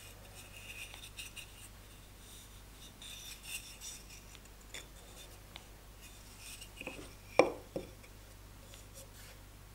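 Light rubbing and scraping of pine workpieces handled on a wooden workbench, with a sharp knock of wood on wood about seven and a half seconds in and a softer one right after.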